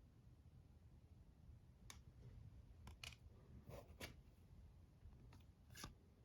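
Near silence with a few faint clicks and rustles of trading cards being handled and flipped through.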